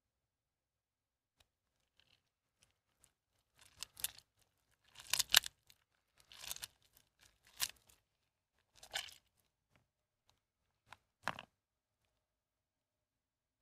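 Hands squeezing and crushing soaked, mushy bar soap in a tub of soapy water: a run of separate squeezes, about six, starting about four seconds in, the loudest a little after five seconds.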